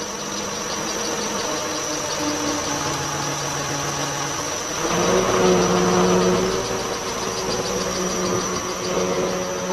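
An engine running steadily, its pitch and loudness stepping up about five seconds in as it speeds up.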